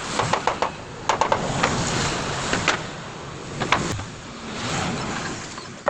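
Wooden door boards being handled and fitted: irregular sharp knocks and taps of wood on wood, a quick cluster near the start and scattered single knocks after, over a steady rushing background noise.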